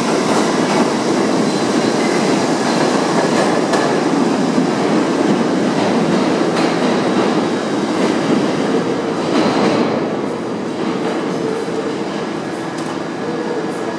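A New York City subway train of R68-series cars pulls out of an underground station, its wheels clattering and rumbling on the rails. About ten seconds in the noise drops off as the train leaves, and a steadier, quieter hum is left.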